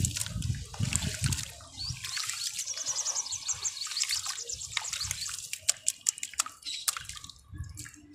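Hands squeezing and crumbling wet, grainy sand-cement under water in a tub: water sloshing and squelching, with dense fine gritty crackles. Low sloshing surges at the start and again near the end.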